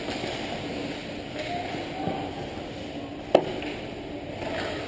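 Ice hockey play around the goal: skates on the ice and voices echoing in the rink, with one sharp, loud hard knock about three seconds in.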